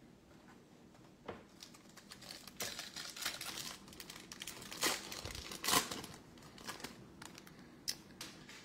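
The wrapper of a trading-card pack being torn open and crinkled. The crackling starts a couple of seconds in and goes on for a few seconds, with two sharp, loud crackles near the middle.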